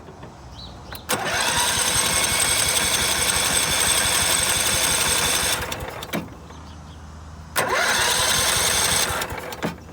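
Starter motor cranking a 16 hp Kohler Command riding-mower engine in two tries, one of about four seconds and one of about a second and a half, each spinning up and then stopping without the engine firing: it has no spark.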